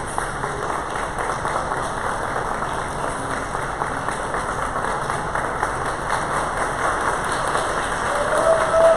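Spectators applauding steadily, with a brief single tone near the end.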